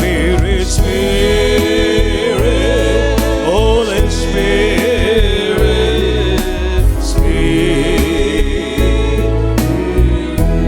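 Live Christian worship music: a band playing with a wavering sung melody over it.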